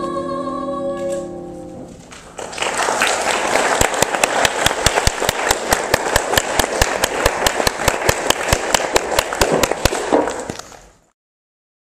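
A young female singer holds the final sung note, which ends about two seconds in; then audience applause with loud, close hand claps about five a second, cut off abruptly near the end.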